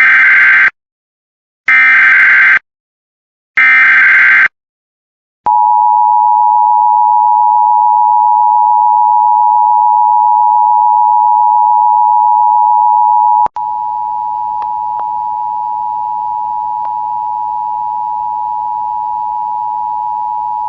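Emergency Alert System alert opening: three short blasts of warbling digital header data about a second apart, then the long steady EAS attention tone. The tone drops in level about thirteen seconds in, with a faint hiss and a few clicks behind it.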